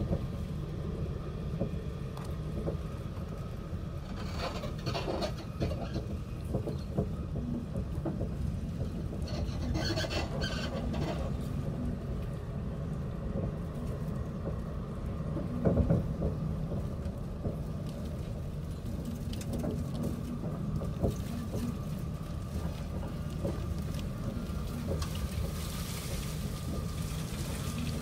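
Steady low rumble of a moving passenger train heard from inside the carriage, with rattles and squeaks from the car and a sharp knock about two-thirds of the way through.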